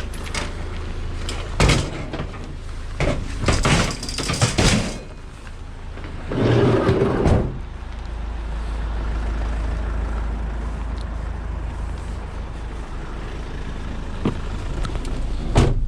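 Knocks and clattering as a salvaged ladder is loaded into a van, followed by the van's engine running steadily with a low rumble.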